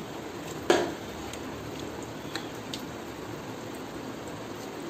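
A steel ladle knocks once sharply against a cooking pot about a second in while beef is transferred, followed by a few faint taps over a steady low hiss.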